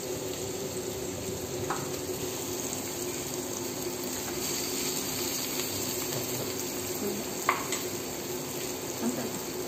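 Chicken and vegetable stir-fry sizzling steadily in a pan over a steady background hum, with a couple of light clicks of the spoon.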